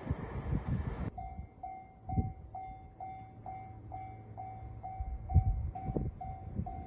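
The noise of a passing train stops abruptly about a second in. A Japanese level-crossing alarm then rings steadily, about two strokes a second, with a few low thumps under it.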